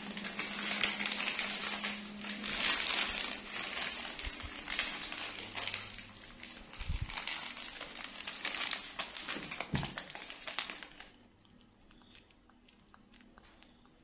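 Plastic instant-noodle packet crinkling and rustling as it is handled and carried, with a couple of dull thumps; the crinkling stops suddenly near the end.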